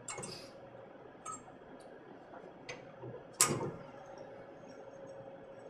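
Scattered light clicks and clinks of a hand tool and metal fittings being handled, with one sharper, louder click about three and a half seconds in.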